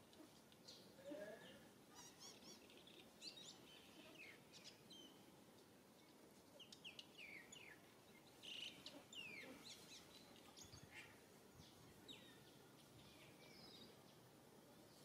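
Faint outdoor ambience with scattered, high, short bird chirps and calls, many of them sweeping downward, coming and going throughout.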